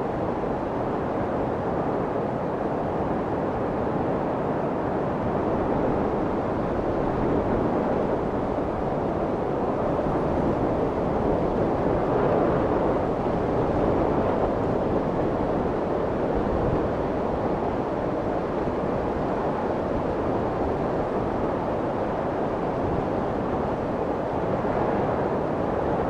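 Steady rushing white noise with slow, gentle swells in loudness and no pitched hum or distinct events.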